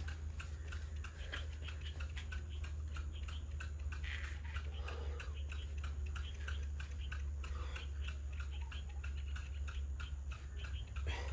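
Fast, regular ticking, about four or five ticks a second, over a steady low hum.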